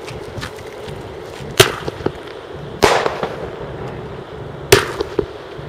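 Dominator Premium Artillery Shell, a consumer mortar-fired firework shell, going off: three sharp bangs about a second and a half apart, the middle one trailing a brief crackle.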